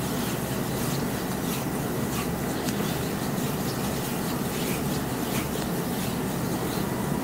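Oiled hands rubbing and kneading the skin of a man's abdomen during a massage: a steady rubbing hiss with faint small clicks scattered through it.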